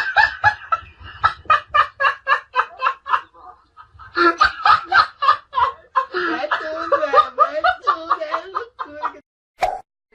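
A person laughing hard in quick, repeated bursts, a second run of laughter starting about four seconds in and trailing off near the end.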